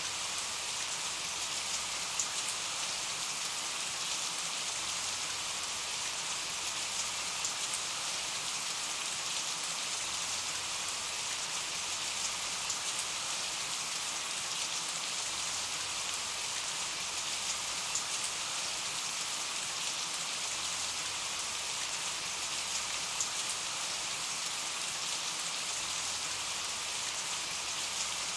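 Steady rain falling: an even hiss with small drop ticks here and there.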